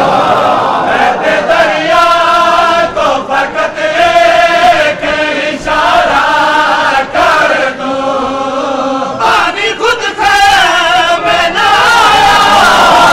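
A crowd of men chanting a Muharram mourning noha together in unison, loud and continuous, the voices breaking briefly between phrases.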